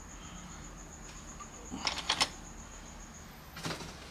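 Brief rustles and clicks of plastic parts packaging being handled, twice about two seconds in and once more near the end, over a faint steady high-pitched whine.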